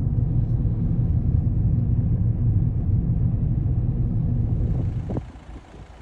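Steady low rumble of a motor vehicle running, dropping to a quieter, uneven noise about five seconds in.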